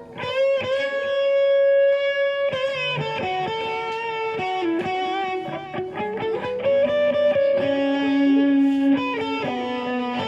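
Electric guitar played through a Boss GT-6 multi-effects processor set to a distorted amp sound with a single delay: sustained single lead notes with bends and vibrato, changing every second or two.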